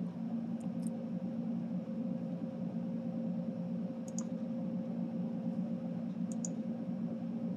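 A few sharp computer mouse clicks, about a second in, around four seconds in and twice near six and a half seconds, over a steady low hum.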